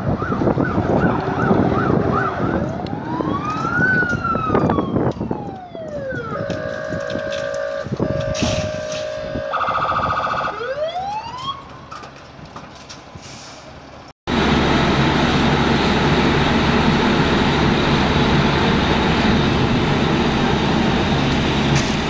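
A fire engine's siren sounding as it comes along the road: a fast warble, then slow wails rising and falling, with a steady two-note stretch between them. After a sudden cut about 14 seconds in, a loud steady rush of a water jet over a low engine hum.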